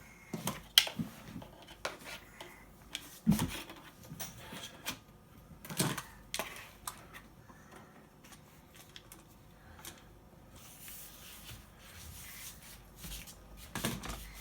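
Irregular clicks and knocks of a cordless vacuum cleaner being handled, with a few sharper knocks among them. The motor is not running, as no battery is fitted yet.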